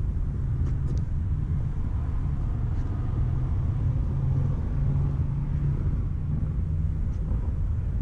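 1965 Corvette L79 327 V8 idling steadily, a low rumble.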